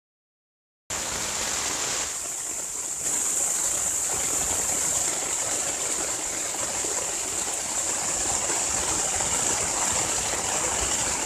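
Silence for about a second, then heavy rain falling on a dome tent, heard from inside as a dense, steady hiss.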